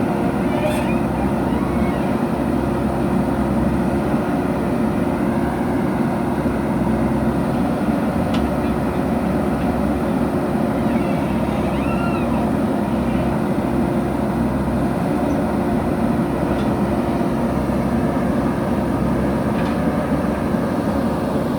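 Diesel engine of a JCB backhoe loader running steadily while digging and loading soil, with a few faint clicks.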